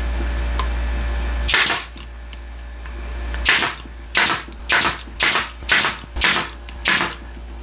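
Pneumatic nail gun firing nails into wood blocks, eight sharp shots each with a burst of air: one, a pause, then seven in quick succession about half a second apart. A steady low hum stops just before the first shot.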